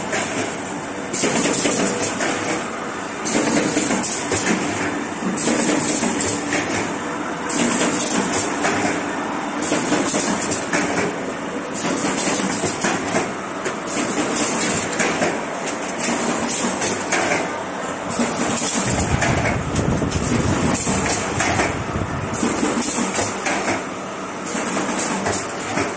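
Automatic corrugated cardboard partition assembly machine running, its working cycle repeating about every two seconds with a high, hissing clatter at each stroke. A heavy low rumble joins about three-quarters of the way through.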